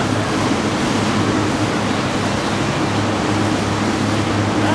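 A cabin cruiser's engines drone steadily under the rush of water from its wake as it runs past at speed.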